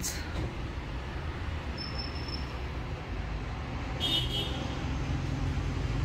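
Steady low background rumble, with a brief faint high tone about two seconds in and a short hiss about four seconds in.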